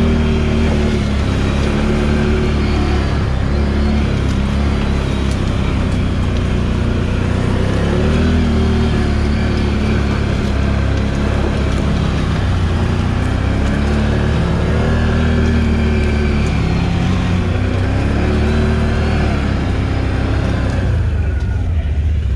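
Can-Am Outlander 1000 XMR ATV's V-twin engine running under way, its pitch rising and falling again and again with the throttle. The engine drops off about a second before the end.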